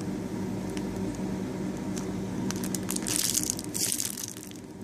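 Hands squeezing a soft foam donut squishy, with plastic crinkling in two louder bursts about three and four seconds in, over a steady low hum.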